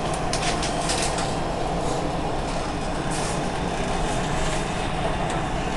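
Dubai Metro electric train running at speed, heard from inside the passenger car: a steady rumble and hum of wheels on rail, with a few brief high hisses in the first second and again about three seconds in.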